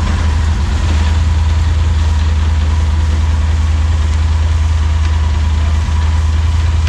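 Yamaha Super Tenere's 1200 cc parallel-twin engine idling steadily, in first gear.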